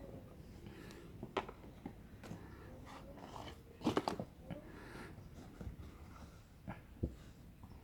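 Scattered light knocks, taps and rustles of a gift and its packaging being handled, with the loudest cluster about four seconds in and a single knock near seven seconds.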